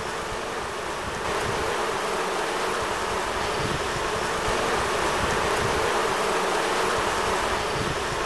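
Many honeybees buzzing around a hive entrance: a dense, steady hum that grows louder about a second in.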